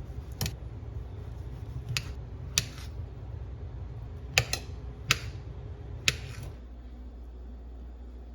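Seven sharp clicks, spaced irregularly, over a low hum that cuts off about six and a half seconds in.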